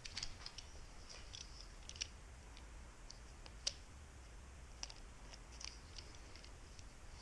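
Faint, scattered small clicks and crackles of tape being handled and wrapped around bike cables, with one sharper click about three and a half seconds in.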